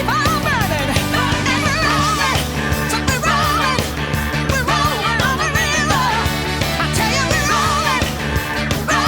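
Rock song with a sung vocal line over guitar, bass and drums.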